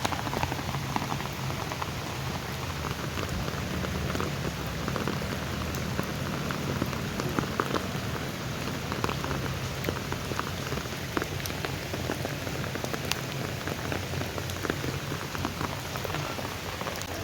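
Steady rain falling, with many single drops ticking sharply close by over an even hiss.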